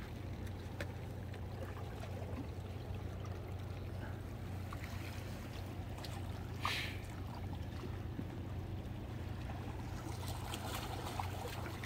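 Sea water gently lapping and trickling among breakwater rocks over a steady low hum, with one short hiss about seven seconds in.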